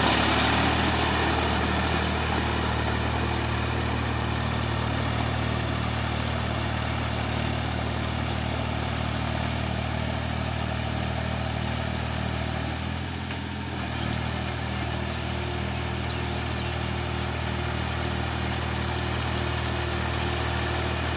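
Eicher tractor's diesel engine running steadily with an even, pulsing beat, its note dipping briefly about thirteen seconds in before picking up again.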